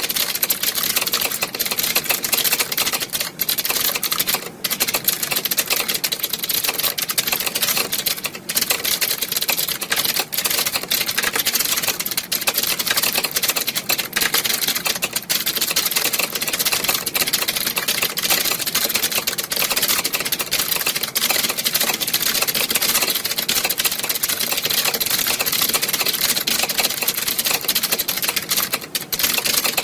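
Many computer keyboards being typed on at once: a dense, continuous clatter of overlapping keystrokes, like a hall full of people sitting a typing test.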